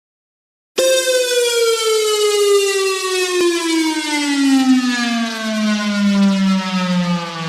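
Sound effect: a loud wailing tone with many overtones that starts abruptly about a second in and glides slowly and steadily down in pitch, like a siren winding down.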